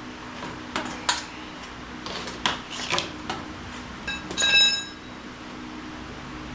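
Scattered light metallic clinks and knocks of tools and sheet metal being handled, with one short ringing clang a little past the middle.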